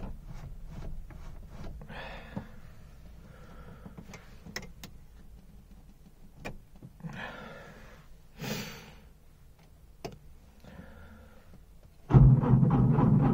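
Small clicks and rustles of handling, then, about 12 s in, the starter abruptly begins cranking the cold Trabant 601's two-cylinder two-stroke engine. It cranks with an even, rapid rhythm and does not fire.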